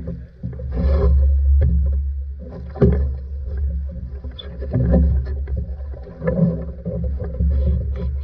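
Water splashing and slapping against the hull of a plywood outrigger sailing canoe under way, with scattered knocks from the boat and a steady low wind rumble on the microphone.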